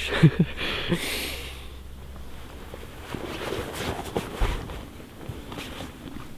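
Waders rustling and swishing as they are pulled up and adjusted around the waist, with shuffling and a soft thump a little past the middle.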